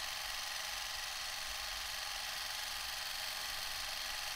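Steady, thin whirring hiss of a vintage cine film camera running while filming.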